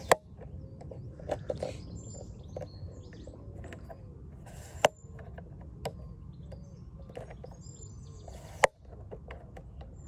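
Small birds chirping in short high calls over a steady low rumble, with three sharp clicks: one at the start, one about five seconds in and one near the end.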